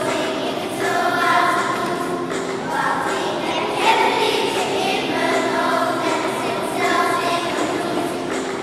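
Children's choir singing a song together, holding long notes that change pitch every second or so.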